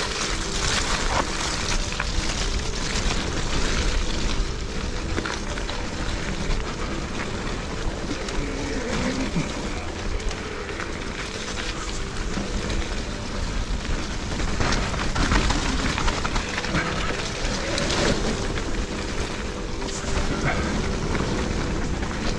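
Specialized Turbo Levo electric mountain bike ridden over a rough dirt trail: a steady rumble of tyres on the ground, with knocks and rattles from the bike over bumps, and wind on the microphone.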